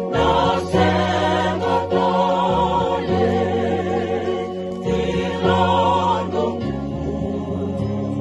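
A vocal group singing a Fijian song together in harmony, with several pitches sounding at once over a held low part. The singing moves in long sustained phrases with short breaks between them.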